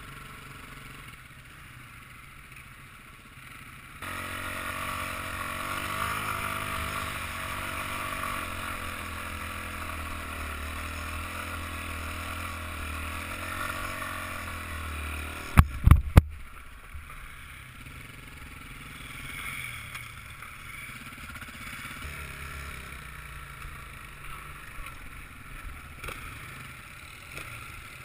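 Off-road trail motorbike engine heard from the rider's helmet: running lightly at first, then pulling harder from about four seconds in, its pitch rising and falling with the throttle. About halfway through come a few sharp knocks, the loudest sounds here, and then the engine drops back to a lower, steady running.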